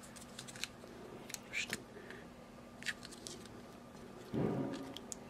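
PTFE (Teflon) thread tape pulled off its roll and wound around the threads of a plastic quick-connect fitting: faint scattered crinkles and soft ticks. A brief low murmur comes about four seconds in.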